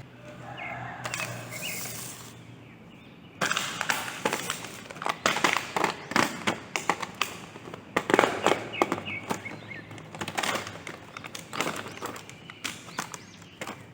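Plastic toy packaging and figure parts being handled during an unboxing: a dense run of crackles and sharp clicks starting a few seconds in and continuing throughout.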